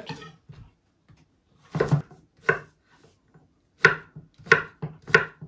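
Kitchen knife slicing through a courgette and hitting a wooden chopping board: five sharp cuts, two about two seconds in, then a short pause and three more in steady succession.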